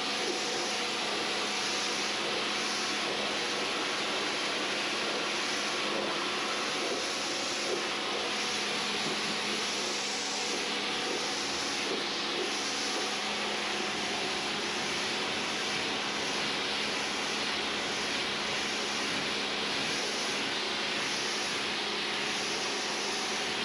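Pressure washer running steadily: a constant hiss of the water jet over a steady motor hum, rinsing chemical off a car's paintwork.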